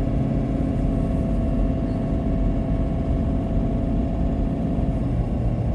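Steady engine and road rumble heard inside the cabin of a moving car, with a constant low hum whose pitch shifts slightly near the end.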